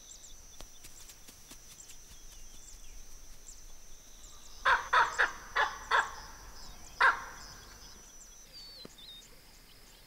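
Wild animal calls: a quick run of about six loud, harsh calls in the middle, over a steady high-pitched drone and faint chirps.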